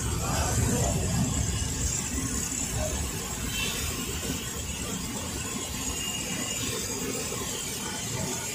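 Deep-frying oil sizzling in a large karahi as dough rounds fry, with a steady low rumble underneath that is stronger in the first couple of seconds.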